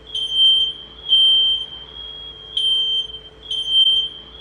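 Recorded smoke alarm sound played back: one steady high-pitched tone, with louder beeps swelling out of it several times.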